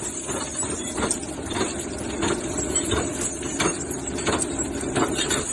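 Heavy machine's engine running steadily, with a sharp click repeating about every two-thirds of a second.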